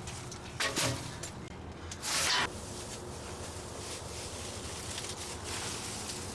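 Shovel scraping and digging into compacted garbage: two short scrapes about a second and a half apart, over a steady low hum.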